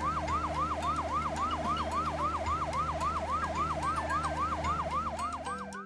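Cartoon fire truck siren, a fast yelp rising and falling about four times a second over a low steady hum. It cuts off near the end.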